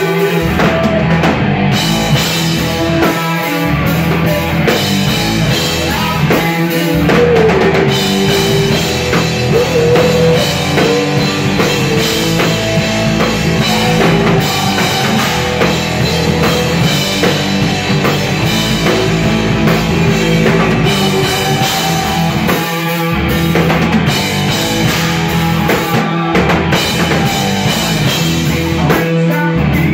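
A rock band playing live and loud, with electric guitars over a full drum kit, heard in the room from the audience.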